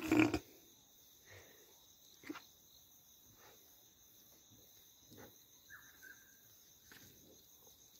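Insects trilling steadily in the background as two high, steady tones, with one short loud sound right at the start and a few faint knocks scattered through.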